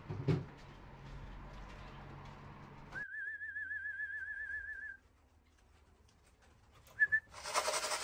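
A person whistling one wavering, warbling note for about two seconds, calling a racing pigeon down to the loft, with a short whistle again a few seconds later. Near the end comes a burst of rushing noise.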